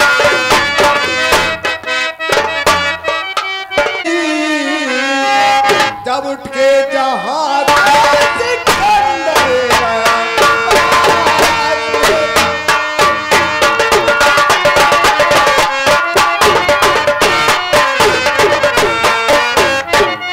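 Live folk-theatre music: drums and a harmonium playing with a man singing through a public-address microphone. The drums drop out for a few seconds partway through, then come back in with fast, dense strokes.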